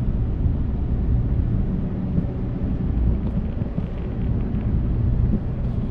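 Chery Tiggo 7 Pro being driven, giving a steady low rumble of engine and road noise.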